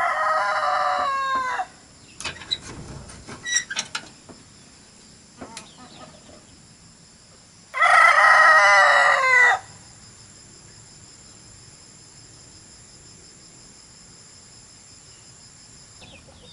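A rooster crowing twice. The first crow is already under way and ends about a second and a half in; the second comes about eight seconds in and lasts nearly two seconds. A few sharp clicks and knocks fall between the two crows, and a faint steady high hum runs underneath.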